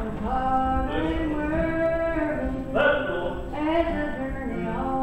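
A woman singing, holding long notes and gliding between pitches.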